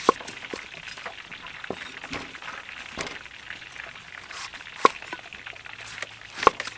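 Cleaver chopping through ripe papaya wedges onto a wooden chopping block: a few sharp knocks, irregularly spaced a second or more apart.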